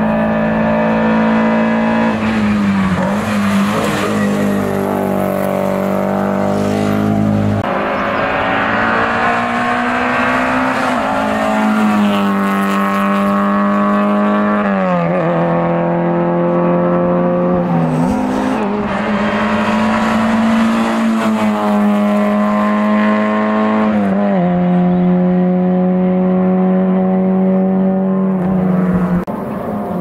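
Historic competition cars accelerating hard, engines revving with a pitch that climbs and then drops sharply at each upshift, about half a dozen times. The sound is loud and unbroken.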